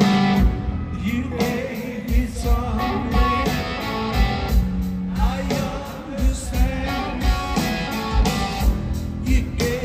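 Live rock band playing: male lead vocal over electric guitar, bass guitar, keyboards and drums, with a steady kick-drum beat.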